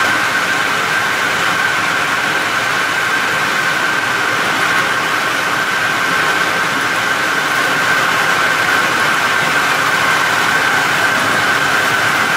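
POLYTEK CBL 1000 plastic bag-making and welding machine running in production: a steady mechanical din with a constant high whine.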